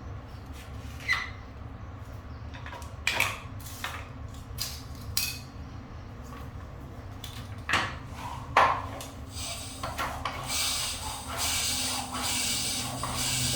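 Scattered light clinks and knocks of metal tools and bicycle parts being handled during a puncture repair. About ten seconds in, a steady hiss comes in and runs on.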